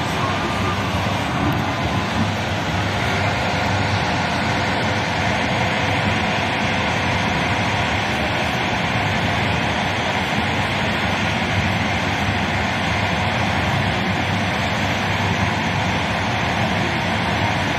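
TLK passenger train in motion: a steady, even running noise of wheels on the rails.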